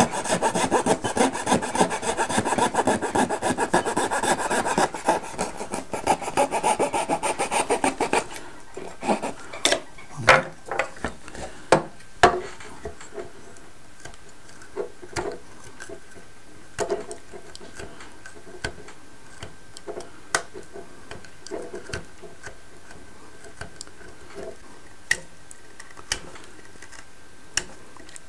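A metal hand file rasps in quick, continuous strokes along the edge of a wooden model-boat kit part for about eight seconds, then stops. After that come scattered light scrapes and clicks as a craft knife trims the wood and the part is handled.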